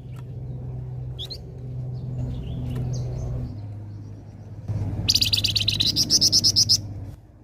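A flamboyan songbird calling. A few short, scattered chirps come first, then about two-thirds of the way through a fast, loud trill of about a dozen evenly spaced high notes lasting under two seconds. A steady low hum runs underneath.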